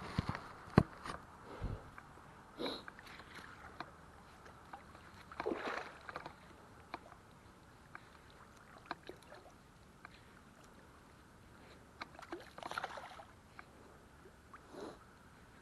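Faint water sloshing and splashing in a few short swells, with scattered small knocks and clicks.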